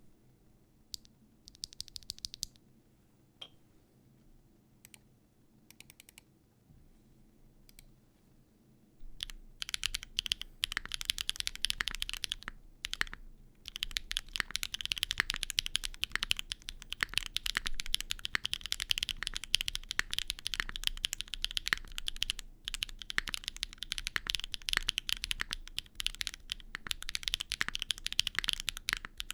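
Typing on a Neo65 Cu mechanical keyboard fitted with BSUN Nana tactile switches, a sharp, clacky sound. For the first nine seconds there are a few isolated key presses, then fast continuous typing runs on.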